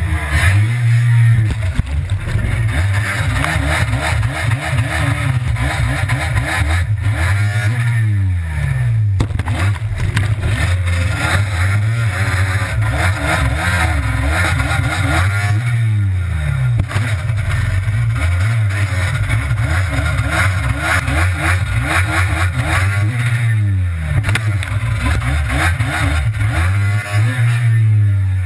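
Stand-up freeride jet ski engine revving up and falling back over and over, a rise and fall every three to four seconds, over the steady rush of water and spray.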